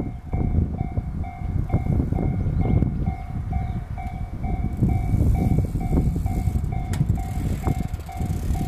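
Japanese railway level-crossing alarm ringing: an electronic two-tone ding repeating steadily about twice a second, warning of an approaching train. Under it runs a loud, uneven low rumble.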